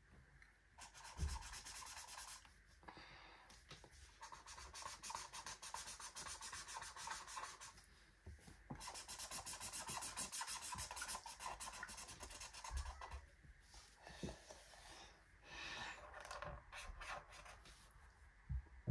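Felt-tip marker scribbling on a paper activity-book page, colouring in with quick back-and-forth strokes. It comes in several faint runs broken by short pauses.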